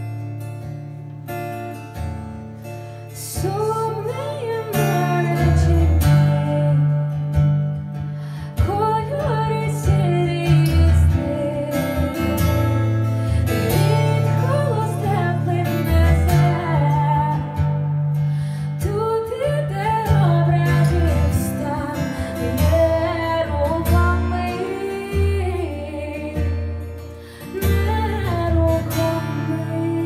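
Acoustic guitar played with a woman singing over it; her voice comes in a few seconds in.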